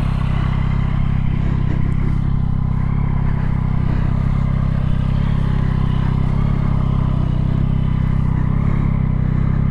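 2023 Yamaha XSR900's 890 cc inline-three engine idling steadily.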